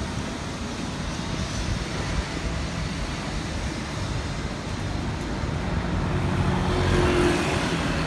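Steady city road traffic noise. A vehicle engine grows louder over the last few seconds, loudest about a second before the end.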